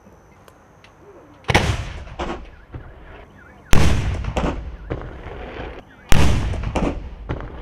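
Towed field gun firing three shots about two and a half seconds apart, each a sharp boom with a long rolling echo.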